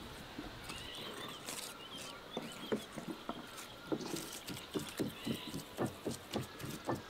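Meat cleaver chopping minced lamb on a wooden cutting board: a run of dull, regular knocks about three to four a second, starting about two seconds in after a short pause.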